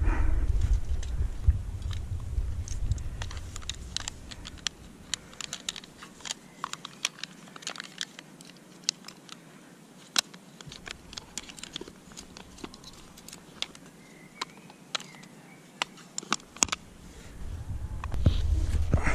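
Scattered small clicks, taps and rustles of climbing hardware and rope handled with gloved hands: metal connectors and a rope device clinking, rope sliding. Wind buffets the microphone with a low rumble at the start and again near the end.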